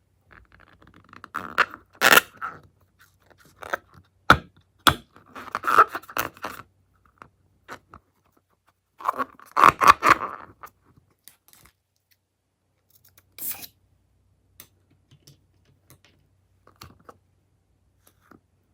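Hands handling and mixing slime materials: three bursts of crinkly scraping and crackling, the loudest about nine to ten seconds in, with several sharp clicks among them, then mostly quiet.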